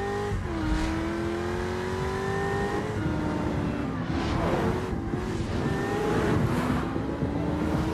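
Car engine accelerating hard through the gears: the engine note climbs steadily, then drops at each upshift, a few times over.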